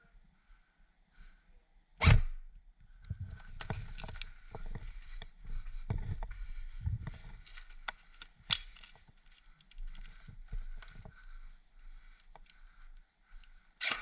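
An airsoft player moving: clothing and gear rustling and scuffing, with footsteps and small clicks. A loud sharp crack comes about two seconds in and another about eight and a half seconds in.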